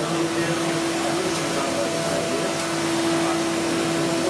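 CNC milling machine spindle spinning a small end mill over the workpiece: a steady whine over an even rushing noise.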